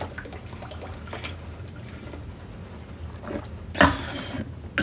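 A person gulping water from a large plastic bottle, with small repeated swallowing sounds, then a sudden loud breath out about four seconds in as the bottle comes down.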